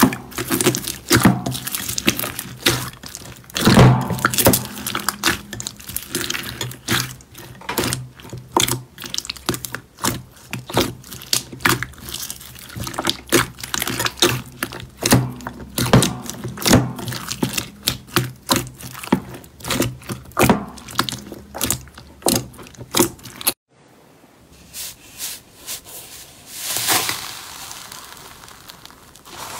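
Slime being squeezed and pressed by hand, making rapid, irregular sticky clicks, pops and crackles. Just before the 24-second mark the sound cuts off abruptly, and a quieter stretch of softer squishing follows.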